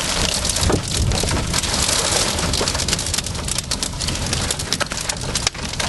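Heavy rain pelting a moving car's roof and windscreen, heard from inside the cabin: a dense hiss with many sharp hits all through it.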